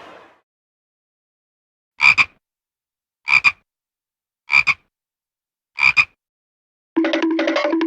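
A single frog croaking four times, evenly spaced about a second and a quarter apart, each croak a quick double pulse. Near the end a pitched, pulsing cartoon sound effect begins.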